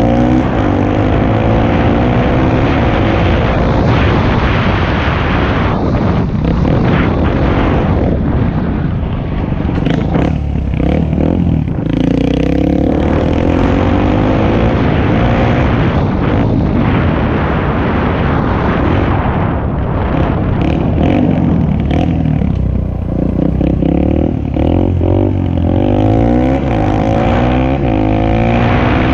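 Suzuki DR-Z125L dirt bike's single-cylinder four-stroke engine running under way, its note rising and falling in pitch over and over as the throttle is worked.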